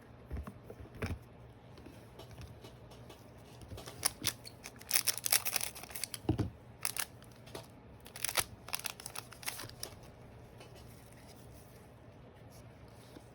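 Trading cards and their foil packs being handled: crisp crinkling and rustling, densest in a run from about four to ten seconds in, with a few light clicks near the start.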